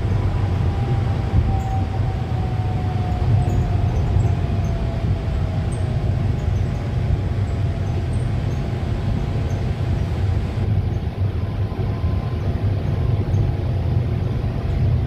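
MRT Yellow Line monorail train (Innovia Monorail 300) running: a steady low rumble with a faint whine that slowly falls in pitch through the first half.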